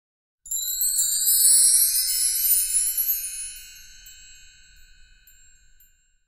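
Sparkling chime sound effect: a cluster of bright ringing tones sweeping upward starts suddenly about half a second in, then fades away over the next five seconds.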